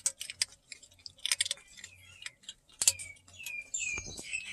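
A cat crunching dry kibble inside an old jar, with irregular sharp crunches and clicks. From about halfway in, birds chirp in the background in short falling chirps that grow busier near the end.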